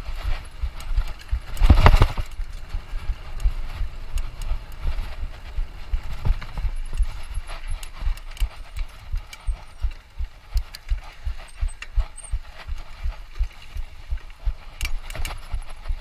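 Mountain bike rattling and thudding over rough ground: irregular knocks and clatter several times a second, with a louder rush of noise about two seconds in.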